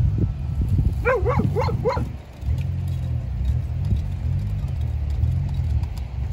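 A low, steady rumble, with a short quavering animal call about a second in whose pitch wavers up and down four times.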